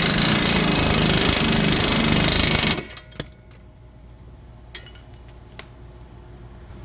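Impact wrench hammering a bolt home for about three seconds, then cutting off, followed by a few light clicks of tools. It is tightening the suspension bolts of a new lower control arm.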